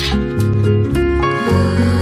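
Background music: sustained melodic notes over a bass line that changes note about every half second.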